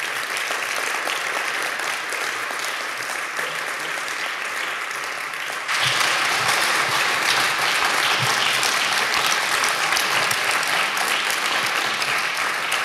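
Audience applauding, the clapping growing louder about six seconds in.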